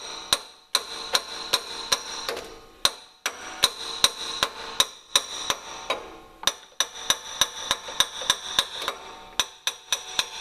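Light hammer taps on metal, a long series of sharp ringing ticks about two or three a second with a couple of brief pauses, driving a seized belt pulley off its shaft.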